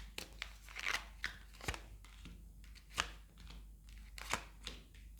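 Tarot cards being handled and laid out on a table: scattered light card snaps and clicks with soft paper rustling.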